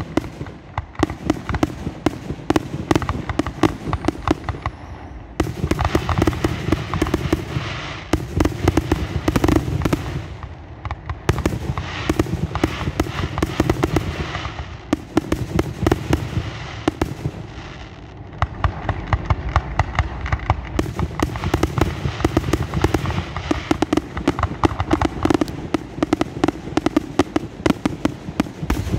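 Aerial fireworks shells bursting in a dense, rapid barrage of bangs and crackles. It comes in waves that swell and ease every few seconds.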